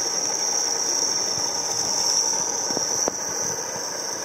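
Off-road vehicle winch hauling on its cable under load: a steady high whine over a mechanical rumble. A sharp knock comes about three seconds in, after which it runs a little quieter.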